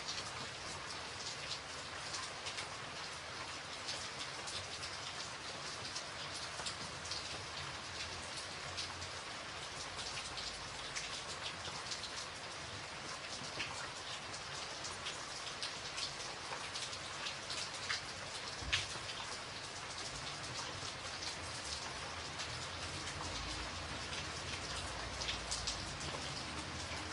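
Rain falling steadily: an even hiss dotted with the ticks of single drops, one louder drop a little past halfway.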